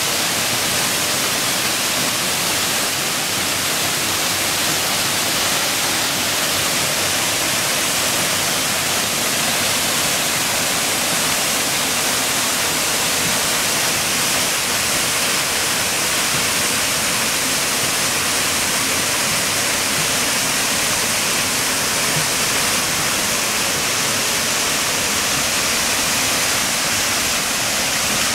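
Waterfall cascading down the rock walls of a narrow gorge: a loud, steady rush of falling water, heavy in hiss.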